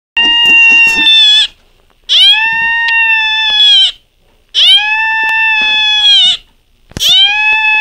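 Beagle howling: four long, steady howls of about one and a half to two seconds each, with short gaps between them. Each howl rises in pitch at the start and drops off at the end.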